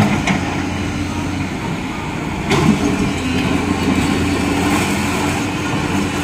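An engine running steadily, with a single sharp knock about two and a half seconds in.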